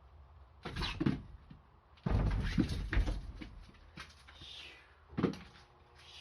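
Thumps and scuffling of a young Siamese cat jumping and landing. There is a short bump about a second in, a louder spell of several thuds and scrabbling about two seconds in, and one sharp knock near the end.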